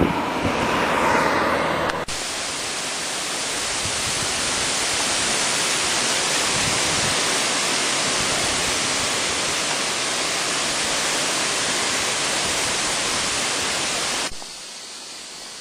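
A steady, even hiss of static-like noise that starts about two seconds in and cuts off suddenly near the end. Before it, a louder, rougher rumbling noise.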